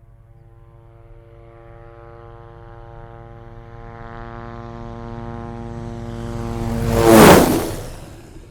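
Propeller aircraft fly-by: a steady engine drone that grows louder for about seven seconds, peaks in a loud rushing whoosh as it passes with its pitch dropping, then fades away.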